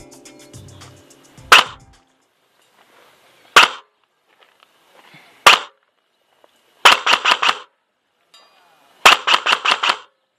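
ASG Scorpion EVO 3 A1 electric airsoft gun firing: three single shots about two seconds apart, then two short full-auto bursts of about six rounds each. Background music fades out in the first two seconds.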